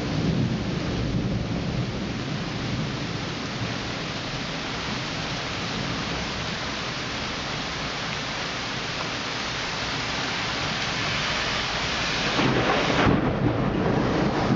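Heavy rain falling steadily during a thunderstorm, with a low rumble of thunder fading over the first couple of seconds. Near the end a van passes on the wet street, adding a louder rush of tyre noise.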